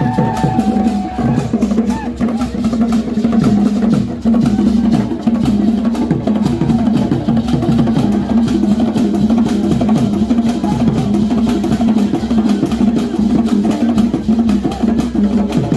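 Music built on fast, steady drumming, with dense sharp percussion strokes over a sustained low tone.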